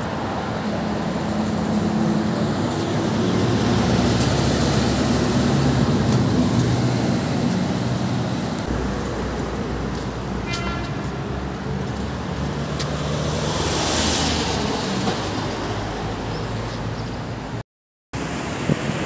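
Road traffic on a multi-lane city road: cars and buses running past in a steady roar of engines and tyres with a low hum. A brief high-pitched tone sounds about halfway through, and the sound cuts out for a moment near the end.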